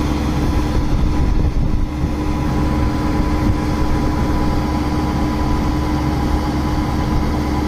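Diesel engines of a Mahindra Arjun Novo 605 DI tractor and a Fieldking combine harvester running together at a steady speed while the combine unloads grain into the tractor's trolley. It is a constant machine hum with no revving.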